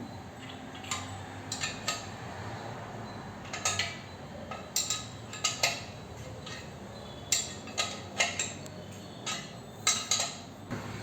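Steel parts and hardware clinking and tapping against each other in irregular sharp, ringing metallic clicks, some in quick pairs and triplets, while the top pulley of a power rack's lat pulldown is being fitted.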